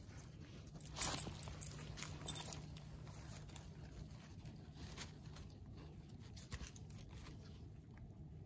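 Irregular crunches and rustles of steps on a woodland trail, loudest in a quick cluster between about one and two and a half seconds in, then fainter scattered clicks.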